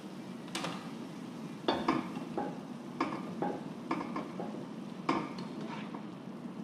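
A black slotted spatula scraping and knocking against a large nonstick frying pan as chicken and vegetables are stirred and tossed. The knocks are irregular, about one or two a second, starting about half a second in, over a steady low hum.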